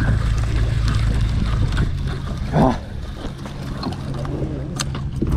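Small boat's outboard motor running steadily at idle, a low even hum. There is a brief louder sound about two and a half seconds in and a few light clicks near the end.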